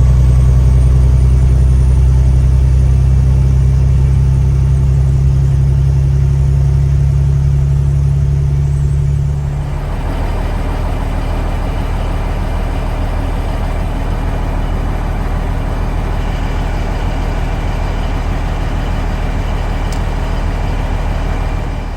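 Truck engine running with a loud, deep, steady hum; about nine to ten seconds in the sound changes suddenly to a rougher, brighter steady noise of the vehicle running on.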